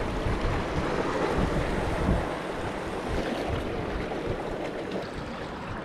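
Small waves washing against shoreline rocks, with wind buffeting the microphone in a steady low rumble.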